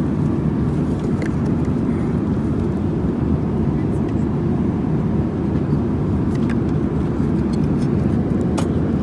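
Steady low rumble of an airliner cabin in flight, with a few faint clicks and rustles of a paper meal box being handled near the end.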